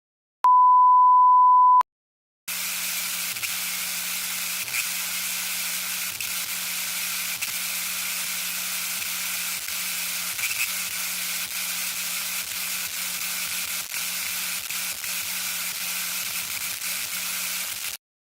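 Abstract sound effects: a steady single-pitch beep lasting about a second and a half, then after a short gap a steady hiss of static with faint crackles and a low hum that breaks on and off, cutting off suddenly near the end.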